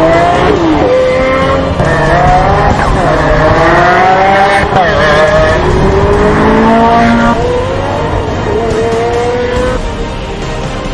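Several supercar engines revving hard as the cars accelerate, overlapping, each pitch climbing and then dropping back at a gear change. The sound eases off somewhat in the last few seconds.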